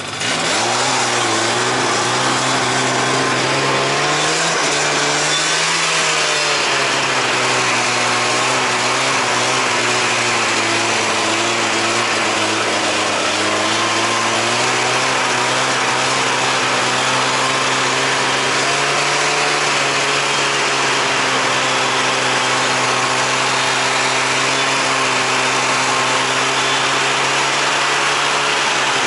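Two-stroke snowmobile engine running hard under load, close up. Its note climbs right at the start, dips about five seconds in, then holds fairly steady with small rises and falls as the throttle changes.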